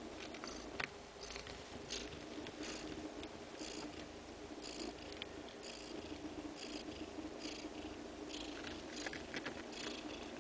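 Neva Masquerade Siberian mother cat purring steadily while nursing her newborn kittens, with short soft crackles every second or so.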